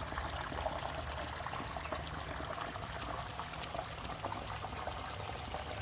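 Water trickling and splashing steadily in a pondless waterfall.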